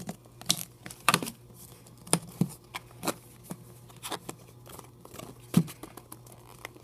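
Irregular sharp clicks and light rustling of small plastic packaging being opened by hand.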